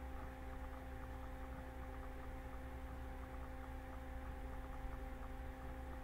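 Quiet, steady electrical hum with a low rumble beneath it: room tone from the recording setup.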